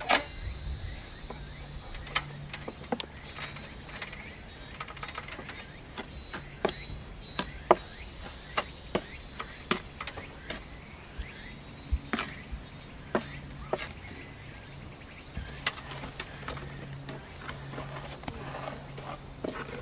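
Irregular clicks, knocks and scrapes of a plastering trowel against a mortar board, bucket and lath-covered wall as wet mortar is scooped and spread, over a steady low hum.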